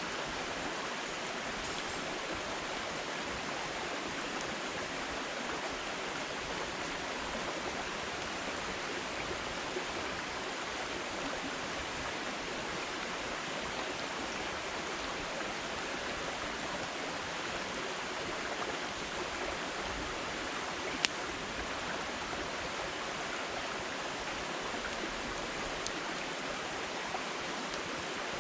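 Campfire of firewood burning with a steady hiss, a few faint crackles and one sharp pop about 21 seconds in.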